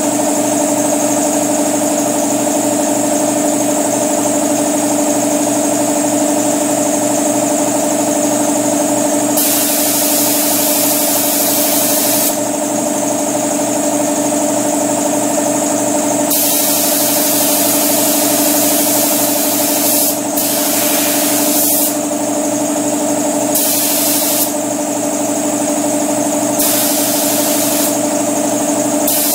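An air compressor running steadily under a spray gun's hiss of air and primer, which switches on and off in about five bursts of one to three seconds each as the trigger is pulled.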